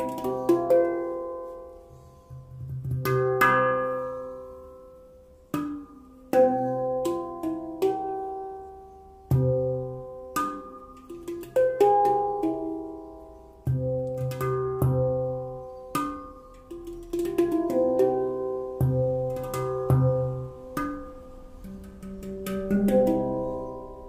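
Tala handpan tuned to the Onoleo scale in C, played by hand: fingers strike notes that ring out and overlap in a flowing melody, with deep low notes sounding every few seconds.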